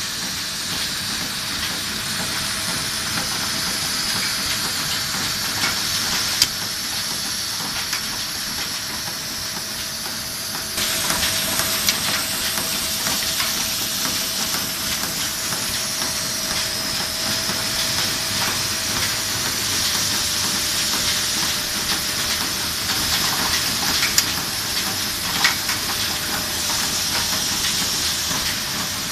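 Factory machinery running: a vibrating tray of small LED components giving a dense, steady rattling hiss, then, about eleven seconds in, a tape-and-reel machine running with a slightly louder hiss, scattered light clicks and a faint steady hum.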